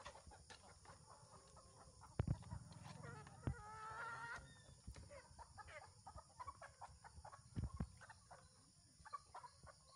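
A flock of chickens clucking and calling as they feed, with a drawn-out call about four seconds in. A few dull thumps, the loudest sounds, come about two, three and a half, and seven and a half seconds in.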